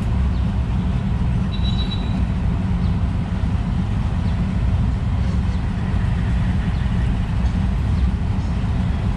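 A steady low rumble of outdoor background noise, with one short high bird chirp about one and a half seconds in.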